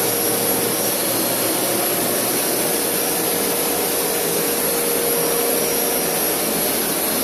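Upright carpet-cleaning machine running steadily: a constant motor and suction noise with a steady hum and a thin high whine.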